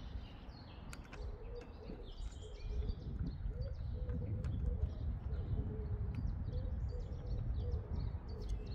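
Birds chirping and cooing outdoors over a low steady rumble, with a few sharp clicks.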